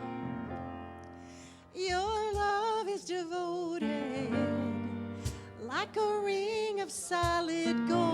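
Worship song: sustained keyboard chords fade for about two seconds, then a singer comes in and sings over the keyboard.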